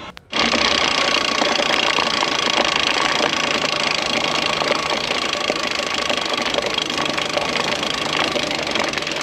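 Electric mountain bike riding fast over a rough gravel track: a dense rolling tyre and wind noise with rapid rattling clicks and a faint steady hum, starting abruptly just after the beginning.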